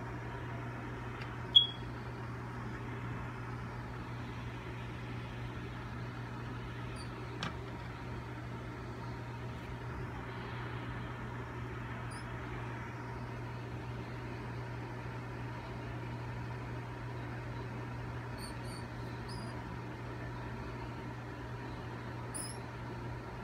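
Steady low hum with even background noise, broken about one and a half seconds in by one short, sharp high squeak, with a faint click and a few faint high chirps later on.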